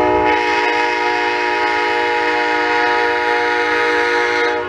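Locomotive air horn on an approaching train, one long blast of several notes sounding together as a chord, held steady and cutting off near the end.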